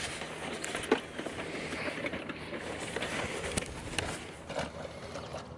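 Wooden-sided pull wagon loaded with a plastic tote rolling over a grass lawn: the wheels running and the wagon rattling, with footsteps and a few sharp clicks and knocks.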